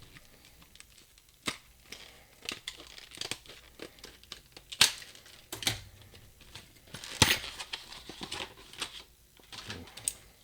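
Irregular clicks, knocks and rustling from brass padlocks and lock-picking tools being handled, with a few sharper knocks among them.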